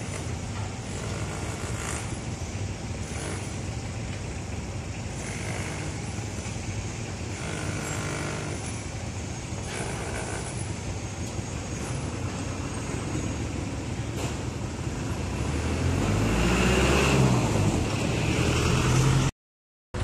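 Steady street traffic and roadworks noise, with an engine growing louder and rumbling low over the last few seconds before the sound cuts off suddenly.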